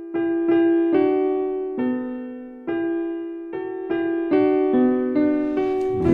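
Piano playing a slow melody one note at a time as the introduction to a choir song. Each note is struck and then fades away, about a dozen notes in all.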